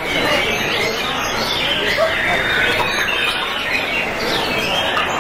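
Many white-rumped shamas (murai batu) singing at once: a dense, continuous tangle of overlapping whistled phrases and pitch glides.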